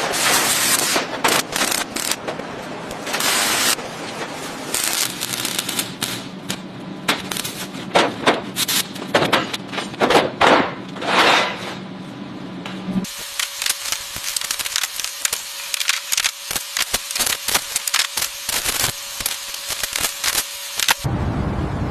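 Workshop tool noise during bodywork on a car: bursts of hiss and rapid, irregular clattering knocks. About 13 seconds in it changes abruptly to a thinner clatter over a steady high hum.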